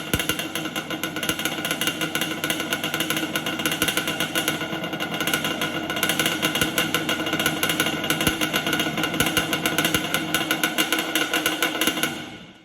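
Yamaha Banshee's two-stroke twin engine running steadily with a fast pulsing beat, then cut off near the end.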